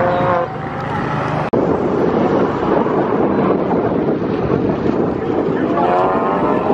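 Big-turbo Volkswagen Golf R's four-cylinder engine accelerating hard through an autocross course, heard from a distance over heavy wind noise on the microphone. The revs climb near the start and again near the end.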